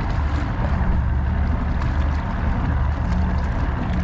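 Steady low rumble and water noise of a small boat moving on the river, with a few faint ticks.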